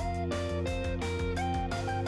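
Background music led by guitar, with changing pitched notes over a steady bass.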